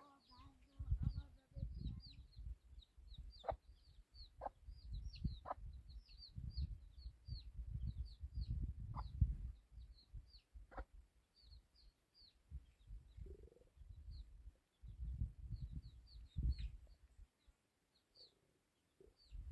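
Many short, high chirps from birds, falling in pitch and coming in quick succession, over irregular low rumbling, with a few sharp clicks.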